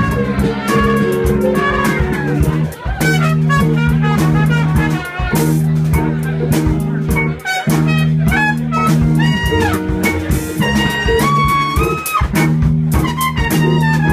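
Live band playing: a trumpet carries the melody over electric guitar and drum kit, with a repeating low riff underneath.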